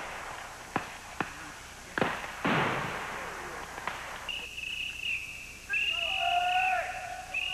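Three scattered rifle shots in the first two seconds, then from about four seconds in a mouth-blown signal call sounding long held blasts, the later ones with several tones together and dropping in pitch at the end: the prearranged signal for the squad to consolidate on the objective.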